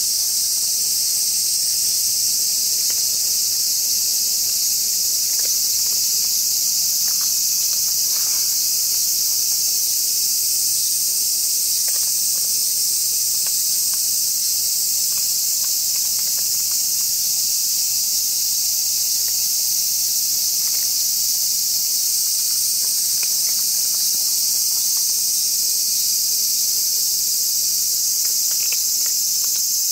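Dense, steady, high-pitched chorus of summer insects, unchanging throughout, with faint scattered small clicks beneath it.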